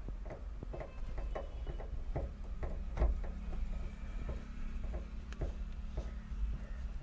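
Screwdriver driving a screw back into the metal mirror bracket in a truck's cab roof: a run of light clicks, about three a second, with one louder knock about three seconds in, over a steady low hum.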